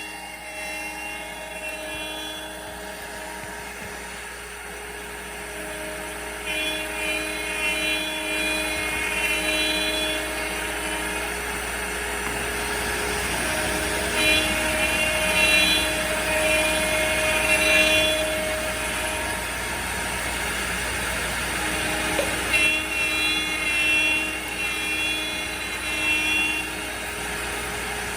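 CNC router cutting: the spindle's steady whir and noise under the stepper motors' whine, which comes and goes in stretches of a few seconds as the machine moves along the toolpath.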